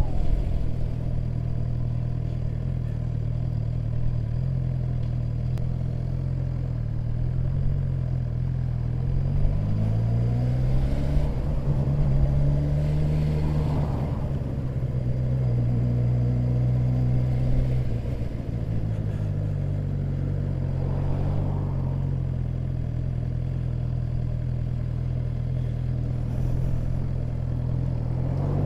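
Sport motorcycle engine running at low speed in slow traffic. Its revs rise about ten seconds in, hold, then ease back down a few seconds later.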